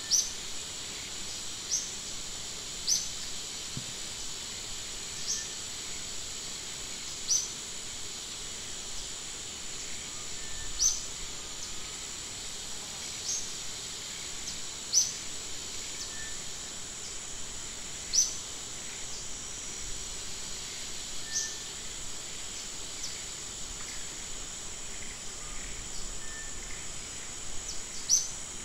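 Forest ambience: a steady, high insect drone, with a bird giving a short, high chirp repeated every second or two.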